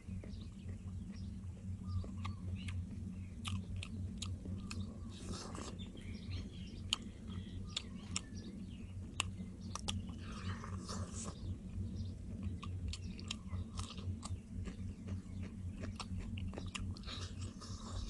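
A person chewing and biting into deep-fried chicken drumsticks, close to the microphone, with many short wet clicks of chewing over a steady low hum.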